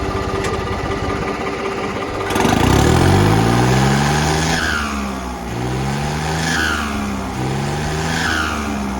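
Ford 7000 tractor's turbocharged four-cylinder diesel idling, then revved about three times. As the throttle drops after each rev, a high falling whistle from the fitted turbo whistle system sounds.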